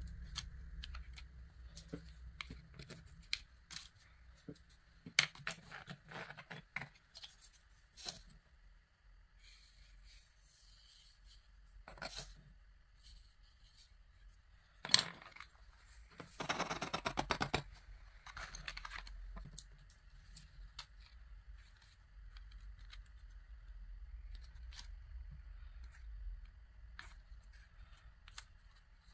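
Scattered small clicks, taps and scrapes of a wooden spoon and stick working coloured sand on an adhesive sand-art sheet, with a quick run of rapid rattling taps a little past halfway and the sheet's paper backing being picked off near the end. A faint steady hiss lies underneath.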